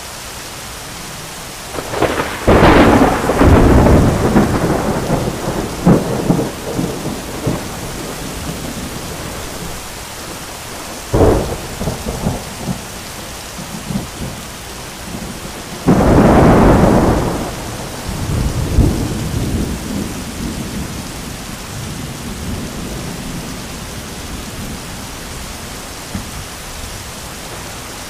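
Heavy rain pouring steadily, with three cracks of thunder: a loud one about two seconds in that rumbles on for several seconds, a shorter one about eleven seconds in, and another loud one about sixteen seconds in, followed by a few seconds of rumbling. Only the rain is left over the last several seconds.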